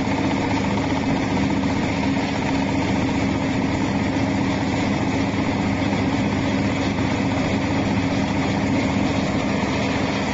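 Mealworm separating machine running: its motor-driven vibrating sieve gives a steady mechanical hum with a constant low tone.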